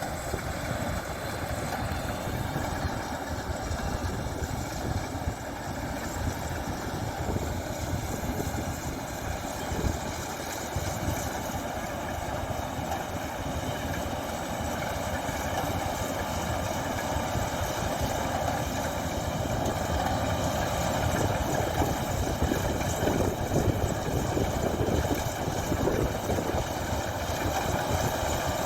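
Rice combine harvester engine running steadily, a continuous mechanical drone that grows a little louder in the second half.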